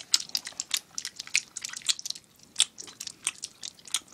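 Several people smacking chewing gum with open mouths: a rapid, irregular run of short, sharp smacking clicks.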